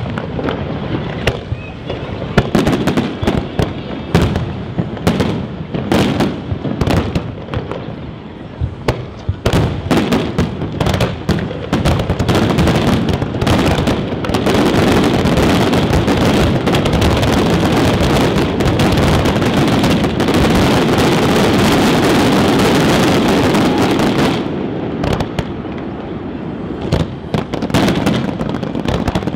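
Aerial fireworks shells bursting, many sharp bangs in quick succession. About halfway in, the bangs merge into a dense, continuous barrage for some ten seconds, then thin out into separate bangs again.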